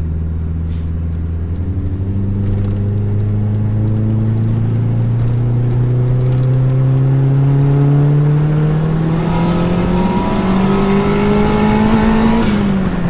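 Turbocharged 1.8T four-cylinder engine under a full-throttle pull in third gear, revs climbing steadily for about ten seconds, then falling away quickly near the end. It is running on low boost, about 1 to 1.1 bar instead of the 1.6 to 1.7 bar it should make, so it is not reaching full boost.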